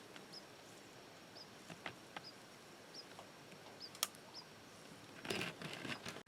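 A small bird giving short, high chip calls about once a second. Faint rustling and a few sharp ticks run under it, and a louder burst of rustling comes near the end.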